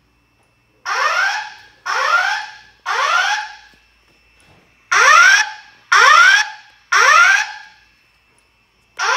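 Hotel fire alarm sounding a rising whoop tone in the temporal-three evacuation pattern: three whoops about a second apart, a pause, then three more, with a third group starting at the very end. A faint steady high tone lies under the pauses.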